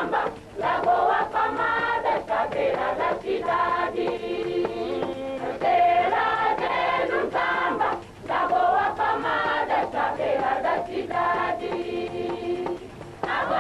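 Tocoist church choir, many voices singing together in sung phrases, broken by short pauses about half a second and about eight seconds in.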